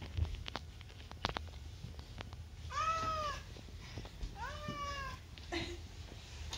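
A domestic cat meowing twice, two drawn-out calls about a second and a half apart, each rising then falling in pitch. A few light taps come in the first second or so before the meows.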